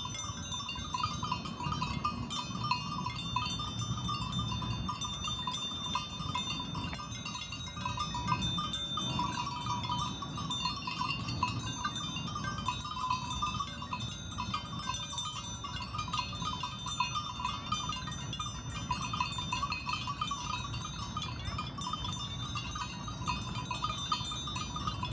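Field sound of a flock of sheep grazing, with steady chime-like ringing tones and a low rumble.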